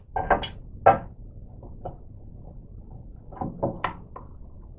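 Clunks and knocks of a cast distributor front plate being handled and offered up against the front of a Model T Ford engine over the timing gear. The sharpest knock comes just under a second in, with a cluster of smaller knocks a few seconds later.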